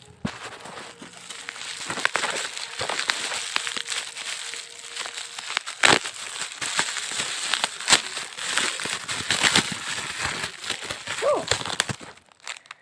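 Fast, continuous clicking and clacking of Gateron mechanical keyboard switches being typed on, with many sharp key strikes over a crackly rattle; it stops shortly before the end.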